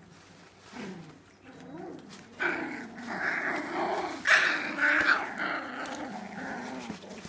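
Four-week-old puppies play-fighting, growling at each other. The growling starts about two and a half seconds in and comes in a wavering run that is loudest a little past four seconds.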